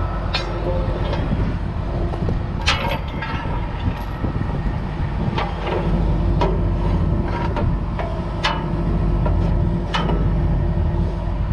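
Heavy tow truck's engine running steadily, with sharp metal clanks and clicks every second or so from rigging and recovery hardware being handled.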